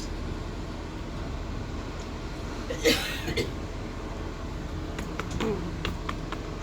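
Cabin noise inside a Class 450 electric multiple unit on the move: a steady low rumble of the train running on the track. There is a short noisy burst about three seconds in and a few light clicks and rattles later.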